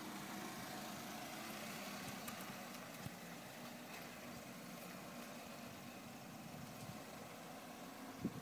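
Faint, steady hum of a vehicle engine, with a single light knock about three seconds in and a few knocks near the end.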